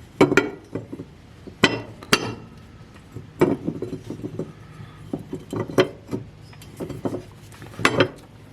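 Metal clinking and knocking from a riding-mower blade and its mounting hardware being handled and fitted onto the deck spindle: an irregular string of sharp clinks with several louder knocks.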